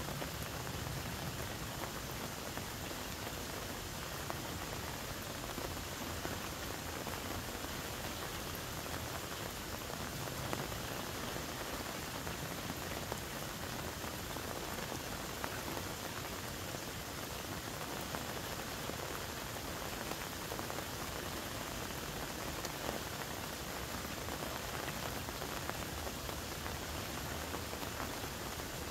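Steady, even patter of falling water drops.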